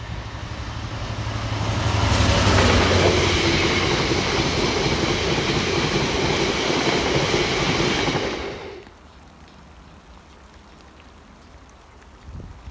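Diesel freight locomotive passing close with its engine humming, followed by a rake of empty open box wagons, their wheels running loudly on the rails. About nine seconds in, the sound drops abruptly to a faint background.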